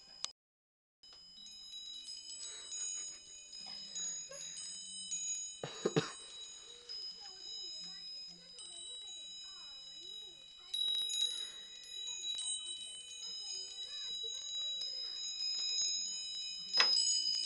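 A hanging dolphin wind chime tinkling and ringing as a kitten bats at it, its clear high tones carrying on and overlapping. Two sharper, louder strikes stand out, about six seconds in and near the end.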